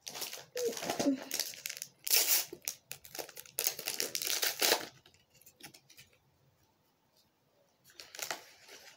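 A trading-card pack wrapper being torn open and crinkled by hand, in a run of rustling bursts over the first five seconds, then a short crinkle near the end.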